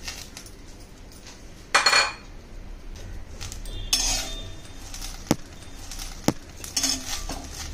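A metal spatula scraping and clinking against a steel kadhai as fresh curry leaves are turned in it for roasting. There is a loud ringing clang about two seconds in, scraping around four seconds, and two sharp taps near the end.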